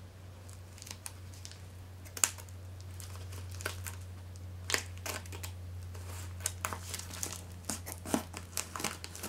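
Plastic bubble mailer crinkling and crackling as it is handled and pulled at to open it. The crackles are scattered, with a sharp one about two seconds in and another near five seconds, and they come more often toward the end.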